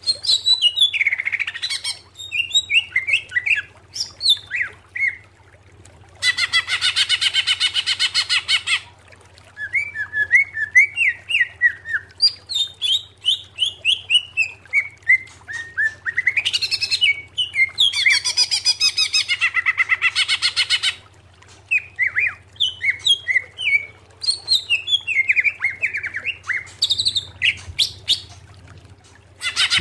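Cucak ijo (male green leafbird) singing: strings of quick whistled chirps sliding up and down in pitch, broken twice by a harsh, rapid rattling burst of two to four seconds, with a third burst starting at the very end.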